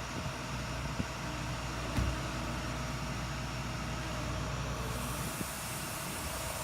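Tow truck engine running steadily with a low rumble and hiss while it pulls a car out of a parking spot, with a single knock about two seconds in.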